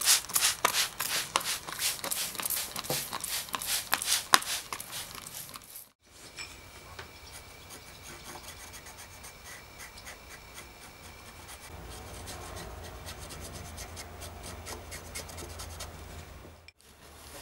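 Trigger spray bottle spritzing liquid woodworm treatment into a wooden trough, many short hissing sprays in quick succession. After a cut about six seconds in, a small paintbrush faintly scratches and rubs as it spreads rust remover along the trough's iron band.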